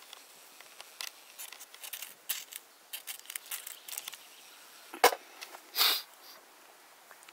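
A fire striker struck again and again to throw sparks onto char cloth: a run of short, sharp scraping strikes, then one loud click about five seconds in and a short hiss just before six seconds.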